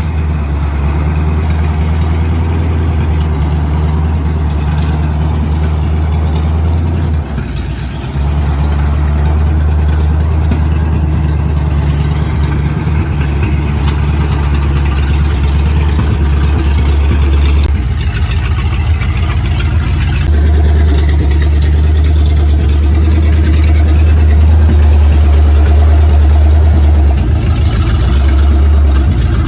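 A large motor or engine running steadily with a loud, deep hum; it dips briefly about seven seconds in and its note shifts a few times later on.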